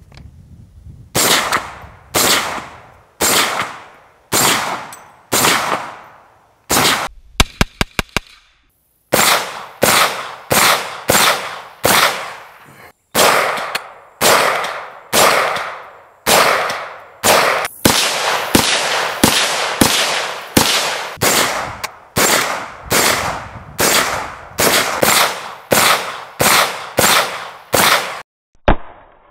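CMMG Mk-W Anvil semi-automatic rifle in .458 SOCOM firing shot after shot, each loud report followed by a fading echo. The shots come mostly about a second apart, with a quick run of short cracks about seven seconds in and faster strings of about two shots a second later on.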